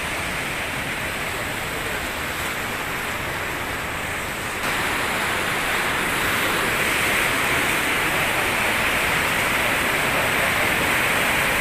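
Steady noisy hiss, then, from about four and a half seconds in, a louder steady rush of brown floodwater churning over rocks.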